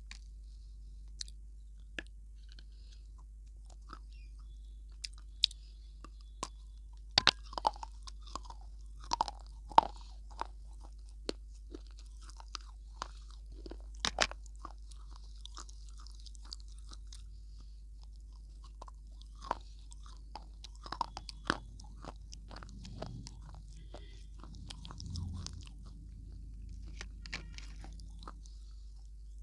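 Close-miked biting and chewing of a dry, crunchy food: sharp, irregular cracks and crunches, loudest and thickest in the first half. Softer chewing follows near the end.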